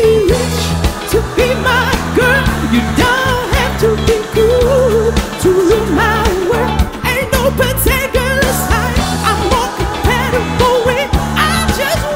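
Pop song with a singer's voice over a steady bass beat.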